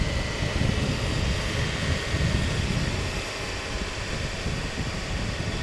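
Riding sound of a 2009 Suzuki GSX-R 750 at low speed: its inline-four engine runs steadily under wind rumbling on the action camera's microphone.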